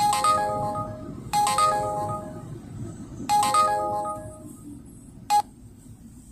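An electronic chime plays a short melodic jingle of stepped tones three times, each about one and a half to two seconds after the last. A single short beep follows a little over five seconds in. A low steady rumble runs underneath.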